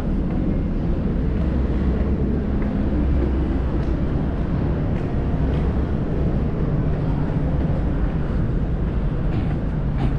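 Steady low rumble of road traffic, with a few faint taps of footsteps on the steps.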